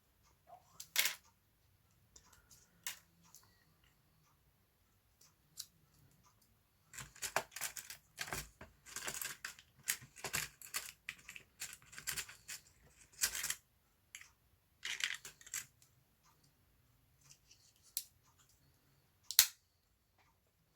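Small sharp clicks and scraping from handling a Swiss Army knife and its small plastic replacement parts, as a coloured part is fitted into the knife's scale. Scattered single clicks, with a dense run of clicking and scraping in the middle.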